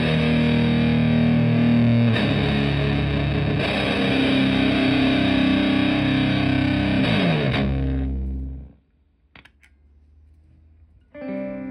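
Stratocaster played through a two-knob Park fuzz pedal into a Fender Twin Reverb–style clean amp: thick fuzz-distorted chords, held and changing every couple of seconds. They die away about eight seconds in, and after a few seconds of quiet with a couple of faint clicks, a new chord starts near the end.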